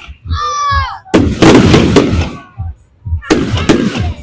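Aerial fireworks bursting in a quick string of loud bangs about a second in, then two more sharp bangs near the end.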